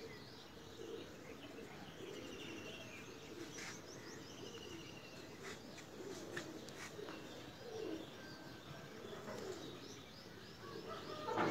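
Pigeons cooing, with small birds chirping and trilling at higher pitch. A louder noise swells in near the end.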